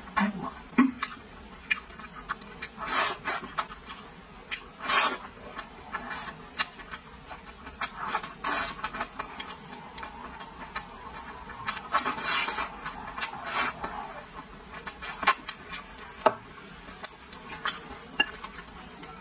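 Close-miked eating sounds: chewing braised pork rib meat off the bone, with wet mouth smacks and many small clicks, in irregular clusters.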